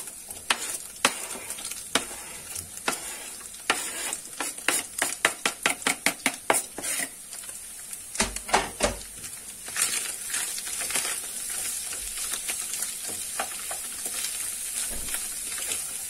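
Onions tipped into browned minced meat sizzling in a frying pan while a utensil stirs and taps against the pan, with a quick run of taps in the first half. Then steady sizzling as it sautés.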